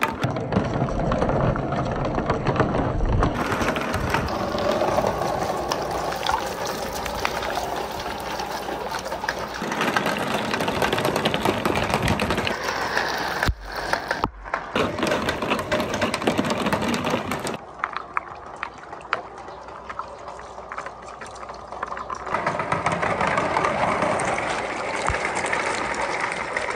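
Many glass marbles and plastic balls clattering and rolling down plastic rain-gutter chutes and splashing into a tank of water. The sound changes abruptly several times between takes.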